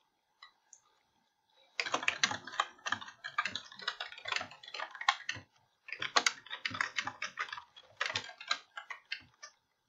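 Typing on a computer keyboard: quick runs of key clicks that start about two seconds in, with a brief pause around the middle.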